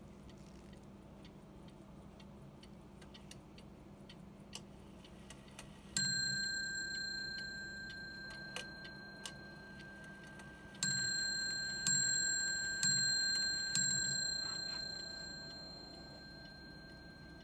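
French Sevres mantel clock's movement striking on its bell: one strike about six seconds in, then four strikes about a second apart, each ringing on and slowly dying away. The strikes are set off as the hands are turned by hand, over the faint ticking of the movement.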